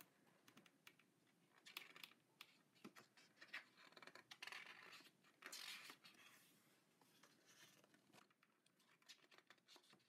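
Faint rustling and sliding of heavy glossy book pages being handled and turned, with a few soft swishes and small taps and clicks.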